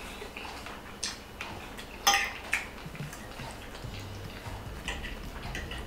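Metal fork clinking and scraping on a ceramic plate while gathering up pasta and sauce: a few sharp clinks, the loudest about two seconds in.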